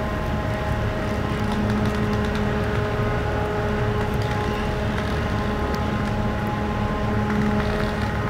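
Car ferry Okesa Maru's machinery running while berthing: a steady low rumble with several held humming tones above it.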